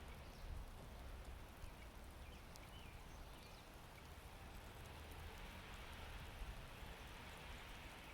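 Faint outdoor ambience: a low, steady noise with a few light ticks and a couple of faint chirps near the middle.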